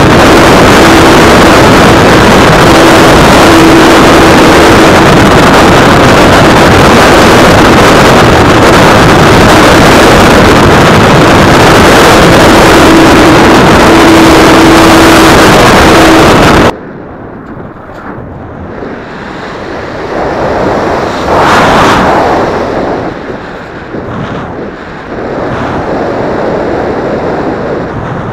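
Wind and propeller wash rushing over the onboard keychain camera's microphone on an electric RC airplane in flight, very loud and overloading, with a faint steady tone from the motor and propeller coming and going. About 17 seconds in it drops suddenly to quieter wind noise that swells and fades.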